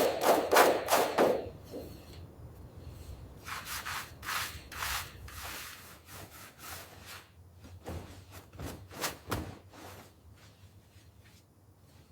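Rubbing or scrubbing strokes on a surface, quick and loud at first, then slower and fainter. Scattered light knocks follow near the end.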